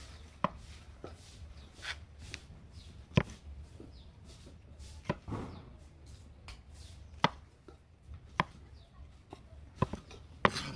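Chef's knife slicing button mushrooms on a wooden cutting board: sharp, irregular knocks of the blade striking the board, roughly one a second.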